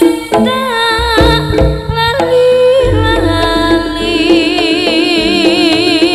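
Javanese jaranan music: a held, wavering melody line with wide vibrato over drum and percussion strokes, with a deep low boom entering about halfway through.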